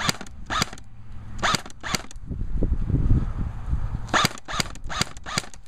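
Airsoft rifle firing single shots: two quick pairs in the first two seconds, then a string of five about a third of a second apart near the end.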